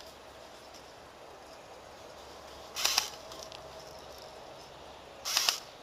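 Airsoft rifle firing two short bursts of rapid shots, about three seconds and five seconds in.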